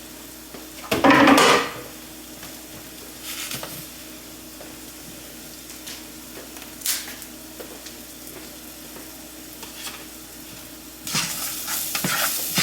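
Bell peppers sautéing in a skillet with a faint sizzle. There is one loud clatter about a second in, a few light kitchen clicks, then a spatula stirring and scraping the pan near the end.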